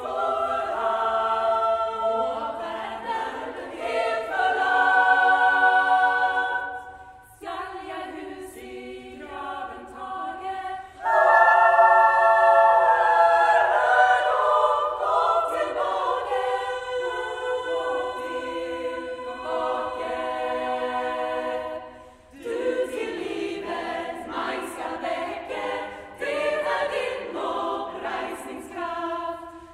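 Women's choir singing a Norwegian folk-song arrangement a cappella, in sustained phrases with short breaks, loudest about eleven seconds in.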